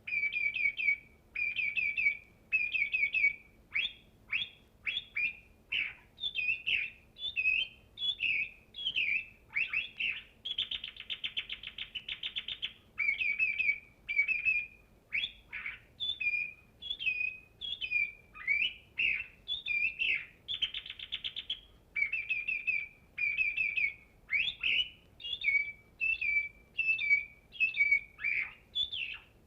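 A bird singing a long, varied song made of short phrases: rapid trills, chirps and whistled downward slurs, with brief pauses between them.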